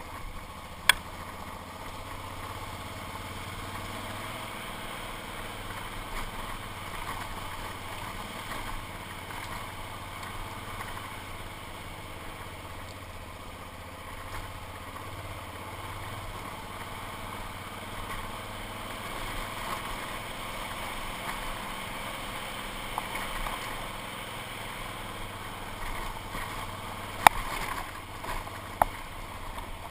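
A motorcycle engine running steadily at low speed on a rough dirt road, with a steady noisy rumble from the ride. A few sharp knocks from bumps come about a second in and twice near the end.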